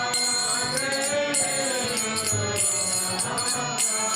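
Bengali devotional song (kirtan) sung slowly, a held melodic line over sustained instrumental tones, with metallic jingling strokes marking a steady beat.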